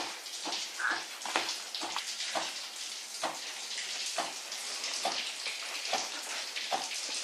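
Water splashing and trickling, with irregular wet clicks and taps about twice a second.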